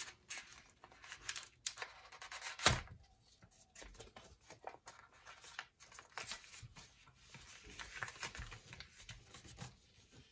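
Paper rustling and crinkling as a folded paper envelope card is pulled open and unfolded by hand, with one louder thump about two and a half seconds in.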